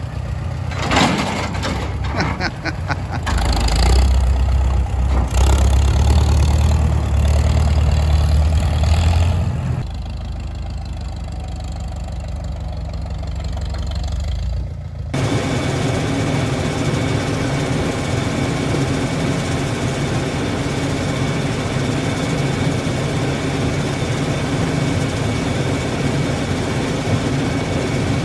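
Farmall M tractor's four-cylinder engine running as it pulls away in road gear towing a manure spreader, loudest a few seconds in. About halfway through it gives way abruptly to the steady running of a Minneapolis Moline corn sheller shelling corn, with a steady high whine.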